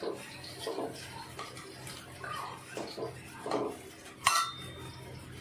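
Metal spoon scraping and clinking against a cooking pot in a series of short strokes, with one sharp ringing clank about four seconds in, the loudest sound.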